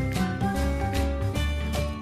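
Background music: a cheerful instrumental track with a steady beat and tinkling, bell-like melody notes.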